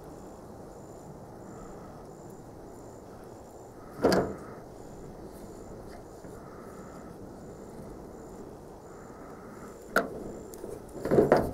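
Handling noise of a CPVC cement can, its dauber and plastic pipe fittings: a sharp knock about four seconds in, then another knock and a second of bumping and rubbing near the end. Beneath it, a quiet outdoor background with a faint high chirp repeating about three times a second.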